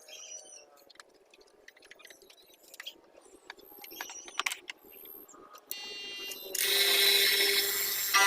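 Light clicks and taps of handling. About six seconds in an electric power tool starts with a buzzing hum, and a moment later it bites into wood with a loud, steady cutting noise as it cuts a mortise hole.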